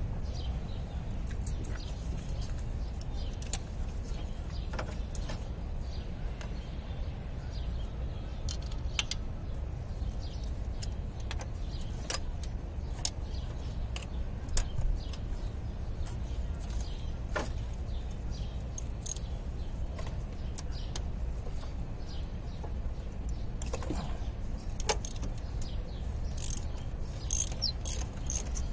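Scattered small metallic clicks and clinks of a ratchet and socket extension working against engine parts, over a steady low rumble. A bird chirps a few times near the end.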